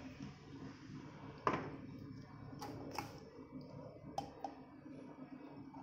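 Plastic blender jar and cup being handled: a few light clicks and knocks, the loudest about a second and a half in.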